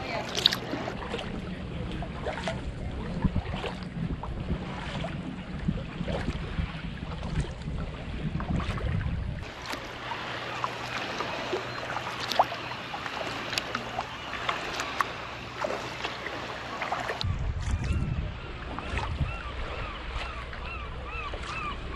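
Sea kayak paddling: paddle blades dipping and dripping, with water splashing and lapping against the hull in a steady run of small splashes. Wind rumbles on the microphone for most of the first half and again in the last few seconds.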